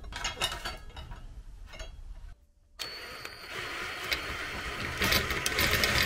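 A few light clinks of a sheet-metal panel being handled, then, after a brief drop-out, an electric drill running a step drill bit through the sheet-metal enclosure panel, its grinding cut growing louder about five seconds in.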